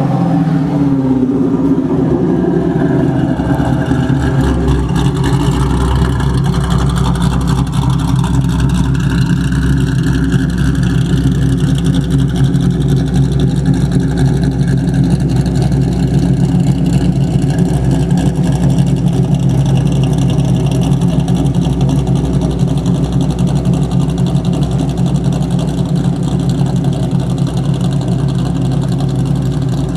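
1999 Ford Mustang GT's modified 4.6-litre SOHC V8, with longtube headers and an SLP catback exhaust, settling from a rev back down to idle in the first few seconds. It then idles steadily, with the mystery tapping noise that the owner cannot trace.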